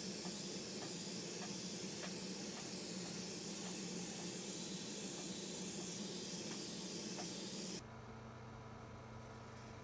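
Paint being sprayed onto the knife in a steady hiss that cuts off suddenly near the end, leaving a faint low hum.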